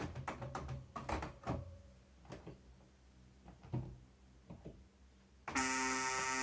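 Synthesizer sounds played from an Alesis Q49 MIDI controller keyboard: a few short, scattered notes, then about five and a half seconds in a loud, bright chord that starts suddenly and is held.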